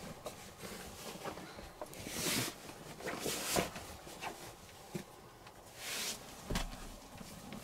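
Bedding rustling as sheets and pillowcases are pulled off a bed, with a few louder swishes of fabric.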